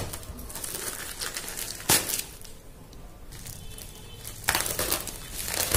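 Plastic courier mailer bag crinkling and rustling as it is gripped and pulled open by hand, with a sharp crackle about two seconds in and a louder stretch of rustling near the end.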